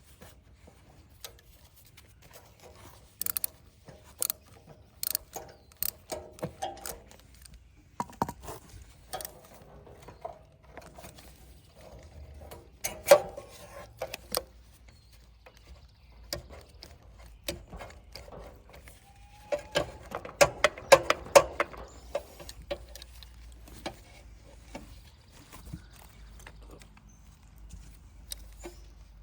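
Irregular clicks, clinks and knocks of hand tools and metal parts being handled during a carburetor swap on a generator, some with a short metallic ring. The handling is busiest about thirteen seconds in and again a little past twenty seconds.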